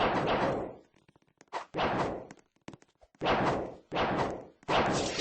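A string of gunshots: about five bangs, irregularly spaced, each with a reverberant tail that dies away in under a second.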